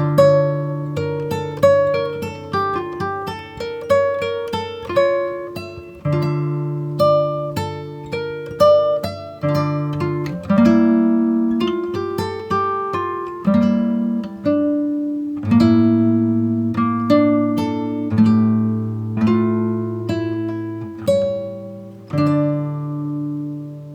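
Background music: plucked acoustic guitar notes, picked one after another.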